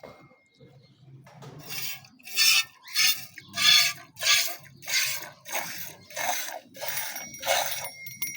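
Goat being milked by hand: milk squirts into a pail in a steady rhythm, about ten strokes less than a second apart, starting about a second and a half in.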